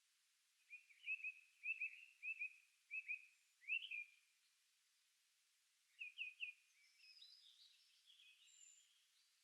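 Songbirds singing: a run of short, high chirps repeated in quick pairs for the first few seconds, then three quick notes and a softer twittering phrase near the end.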